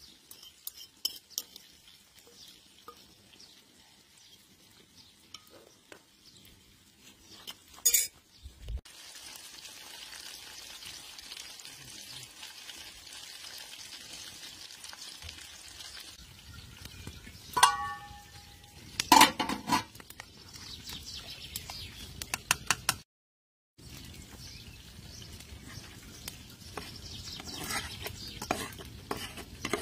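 Fish frying in oil in an aluminium pan: a steady sizzle, broken by sharp clinks of a metal utensil against the pan, one of them ringing. Before the sizzle sets in, there are only sparse light clicks and one loud knock.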